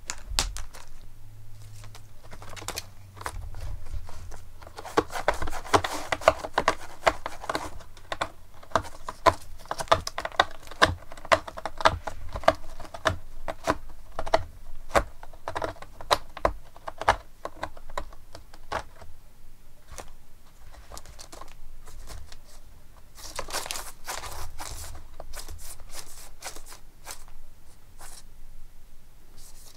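A cat's claws raking and scratching a corrugated cardboard scratcher in excited bursts: rapid dry crackling scratches and sharp taps, densest about five to eight seconds in, again through the middle, and in a short burst a little before the end.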